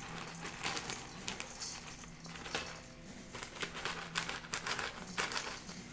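Plastic bag of shredded Parmesan cheese crinkling in the hand as it is tipped and shaken out over a bowl, in many short, irregular crackles.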